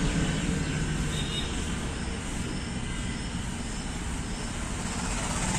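Steady low rumble and hiss of background noise, with no distinct event standing out.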